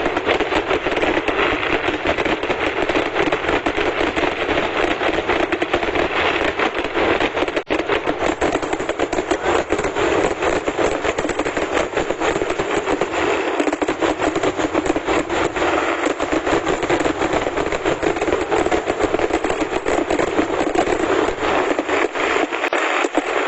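Vedikettu temple fireworks: a dense, unbroken barrage of firecracker bangs, too fast to count, going on without a pause.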